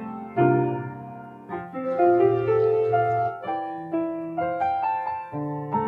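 Piano playing, notes and chords struck and left to ring out.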